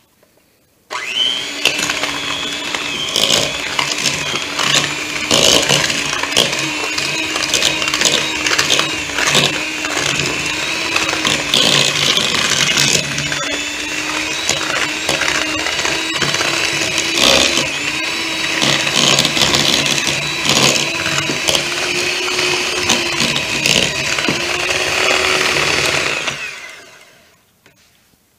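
Electric hand mixer switched on about a second in, running steadily with its twin beaters creaming vegetable shortening and sugar in a bowl, with frequent clicks over the motor hum. It is switched off near the end and winds down.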